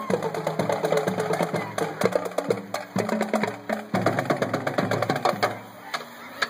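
High school marching band playing as it marches: brass and reeds holding sustained notes over sharp percussion clicks. The playing thins out and drops in level about five and a half seconds in.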